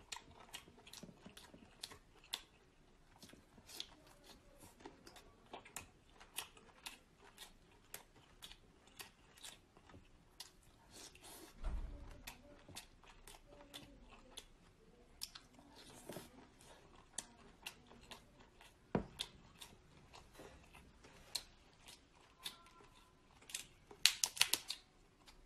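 Close-up eating of cooked shellfish: soft chewing with irregular clicks and crackles of shell being handled and peeled. A quick run of sharp crackles near the end as a shell is torn apart.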